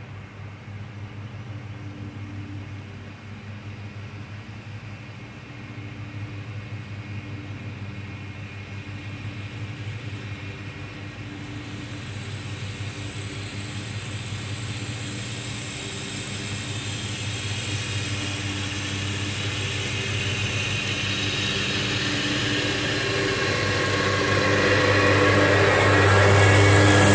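Gravely zero-turn mowers running steadily as they cut the field, their engine hum growing gradually louder as they approach, loudest near the end.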